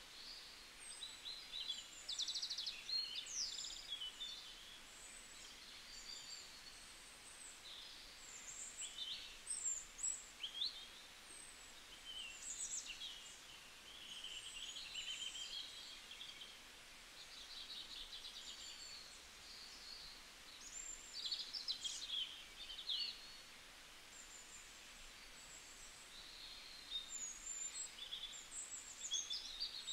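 Small birds chirping and twittering, many short high chirps and quick trills coming in irregular bunches, over a faint steady hiss.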